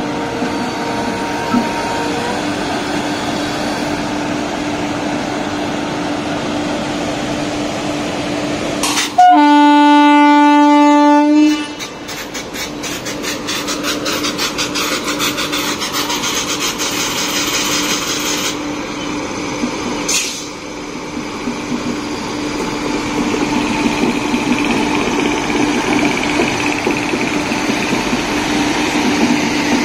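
An Indian Railways electric locomotive hauls a passenger train slowly past. Its horn sounds one long blast about nine seconds in, the loudest sound. After that, the wheels click rapidly over the rail joints as the coaches roll by.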